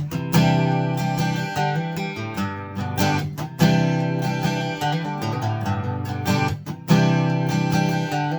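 Takamine EF-349 steel-string dreadnought acoustic guitar being strummed, with sharp strummed strokes and full chords ringing on between them.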